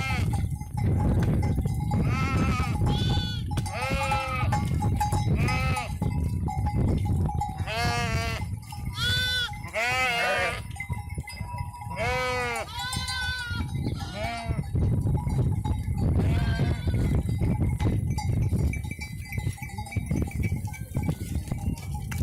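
A flock of small livestock bleating again and again, the calls overlapping, over a low rumble and a faint steady tone.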